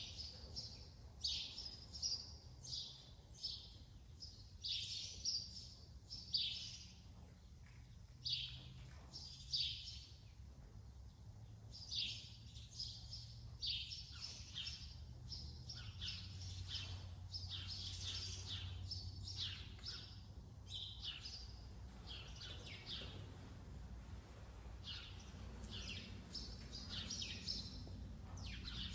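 Small birds chirping, many short high calls in quick runs, over a faint low steady hum.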